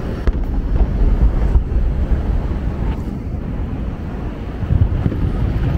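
Wind rumbling and buffeting on the microphone, an uneven low roar with a few faint clicks.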